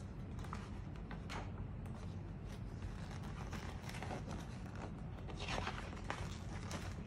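Glossy paper catalogue pages rustling as they are turned and handled, in a series of irregular swishes, the loudest a little over halfway through, over a low steady hum.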